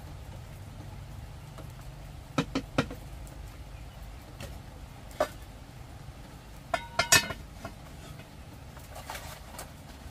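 Metal pot lid knocking against a cooking pot on a wood fire: a few light clicks a couple of seconds in, then a cluster of louder clanks with a brief metallic ring about seven seconds in as the lid is set on the pot.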